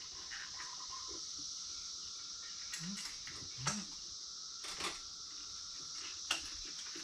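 A few light metallic clicks and clinks from hand tools and parts being worked in a car's engine bay, spaced irregularly over a steady faint hiss.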